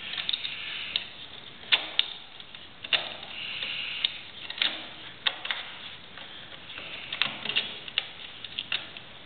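Screwdriver turning the fixing screws of a flush-mounted double wall socket: irregular small metal clicks with short bouts of scraping.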